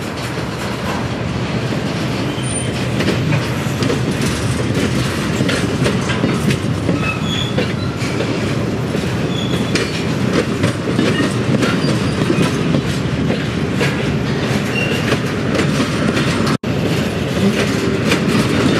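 Covered grain hopper cars rolling past on jointed track. The steel wheels rumble and click over the rail joints, with a few short high wheel squeals. The sound drops out for an instant about three-quarters of the way in, then the rolling carries on.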